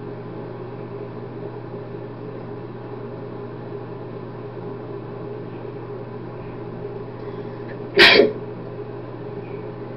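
A person sneezes once, short and sharp, about eight seconds in, with one hand over the mouth. A steady low hum sits underneath.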